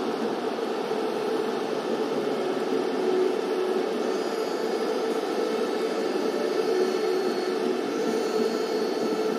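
Steady, loud hiss of static-like noise with a faint hum running through it.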